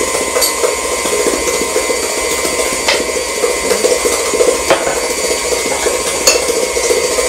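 Electric stand mixer running steadily, beating butter and brown sugar together into a creamed mixture. About four light clicks of a utensil against a bowl sound through it.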